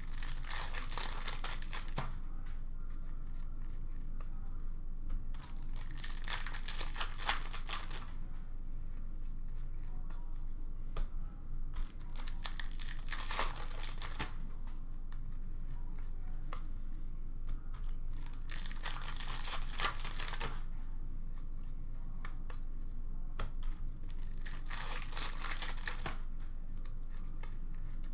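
Foil hockey card pack wrappers being torn open and crinkled by hand, in five bursts of about two seconds each, roughly every six seconds.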